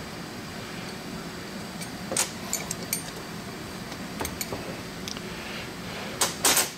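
Scattered sharp metal clicks and clinks of cap screws and a small tool being worked on the hub of a Browning taper-fit pulley as it is readied to come off the motor shaft; the loudest pair of clinks comes near the end, over a steady low hum.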